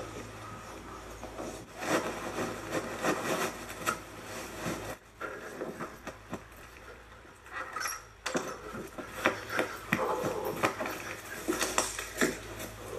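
Duvets being snatched up and bundled in a hurry: irregular fabric rustling and swishing with scattered knocks and bumps. The sound comes in two busy stretches with a quieter gap in the middle.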